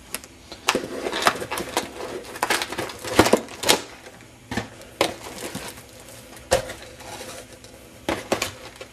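Cardboard hobby boxes of trading cards being handled and shifted on a desk: irregular knocks, taps and rustling.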